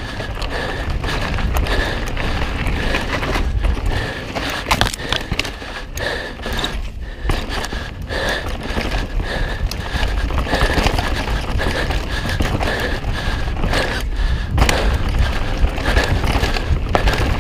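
Mountain bike riding noise on a dirt trail: tyres rolling, the bike rattling and knocking over bumps, under a constant low rumble. A faint high note pulses about twice a second.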